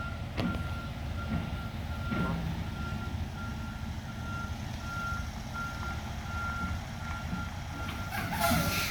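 Truck's reversing alarm beeping in an even, steady series as it backs up, over the low rumble of its running engine. A brief burst of noise comes near the end.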